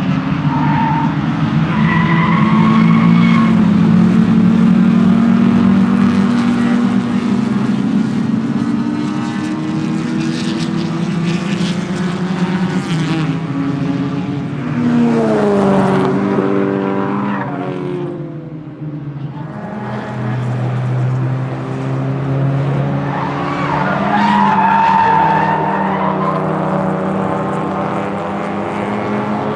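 Lada 2101 race car's 1.6-litre inline-four engine running hard at racing speed, its revs climbing and falling through the gears. The revs drop steeply about halfway through, and the tyres squeal briefly a couple of times.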